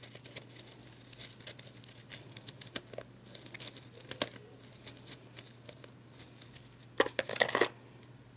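Soft blended ice crackling and crunching as it is handled and pressed into chunks: scattered small clicks, then a louder burst of crunching about seven seconds in.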